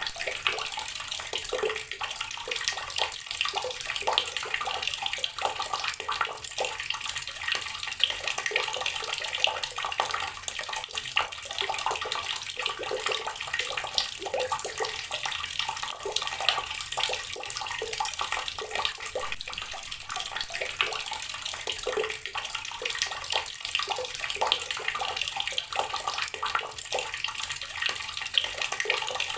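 Water running steadily from a tap and splashing onto rocks, a continuous spattering with many small drips and splashes.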